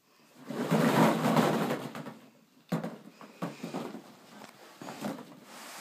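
Plastic ball-pit balls rustling and clattering against each other and the hard plastic kiddie pool as a baby moves through them: a surge of rustling in the first couple of seconds, then scattered sharp clicks and knocks.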